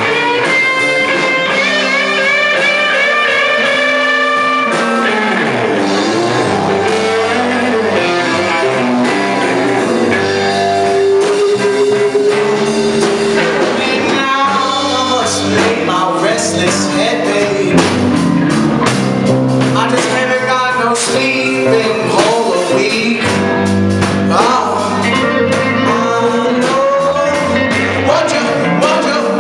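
A live blues-rock band playing, with electric guitar and drums and a man singing.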